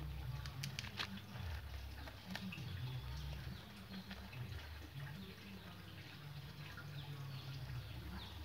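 Hands pressing and settling coarse potting media into a bonsai pot, giving scattered small clicks and crunches of grains over a low handling rumble.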